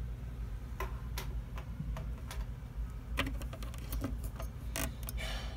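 Light, irregular clicks and taps, about two a second, from small plastic toy figures being handled and set down, over a low steady hum.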